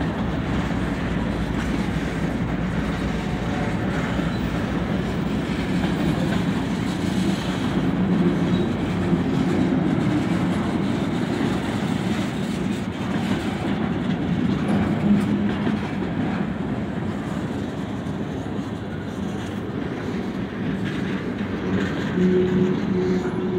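Freight train of empty bulkhead flatcars rolling past close by: a steady noise of steel wheels running over the rails.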